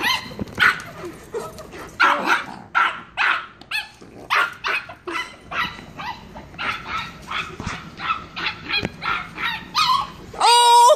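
A small dog yapping over and over in play, a few sharp high-pitched barks a second. Near the end a loud, long drawn-out pitched call begins.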